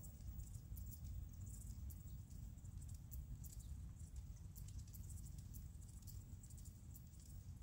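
Faint outdoor ambience: a steady low rumble with scattered faint high ticks at irregular intervals.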